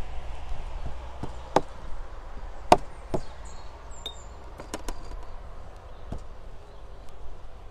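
A few irregular sharp knocks and clicks, the loudest about two and a half seconds in, over a low outdoor rumble.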